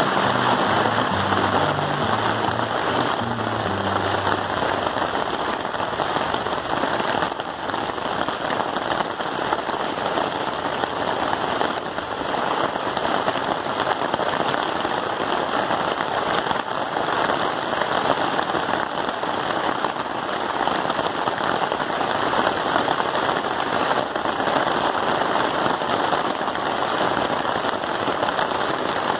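Steady rain falling on a tarp shelter at night, a dense even crackle of drops on the fabric.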